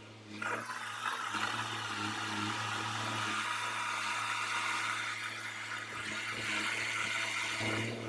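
Effer truck-mounted loader crane moving under hydraulic power: an even hiss and whir of hydraulic oil flow over the steady hum of the truck engine driving the pump. The hiss comes in about half a second in and eases off just before the end.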